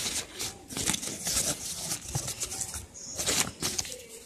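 Crumpled sheet of lined notebook paper being handled and scrunched, crinkling and rustling in irregular bursts.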